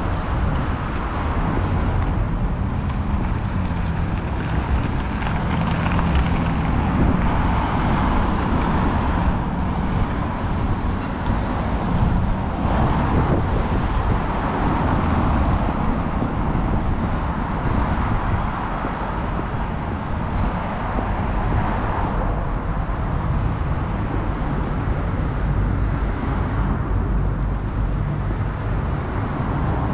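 Steady city street ambience: road traffic noise with a constant low rumble.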